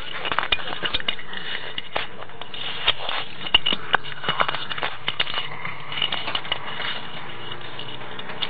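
Close handling noise on a dashcam: irregular crackling, rubbing and clicking as the camera is grabbed and covered, pressed right against its microphone.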